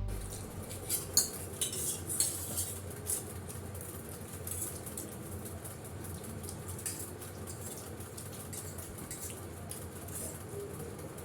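Cutlery clinking lightly on plates and bowls as people eat chowmein, with scattered short clicks that are more frequent in the first few seconds.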